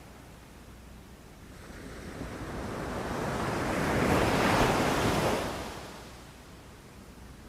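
Sea waves on a shore: one wave swells up, breaks and washes in loudest about halfway through, then fades back to a low, steady wash.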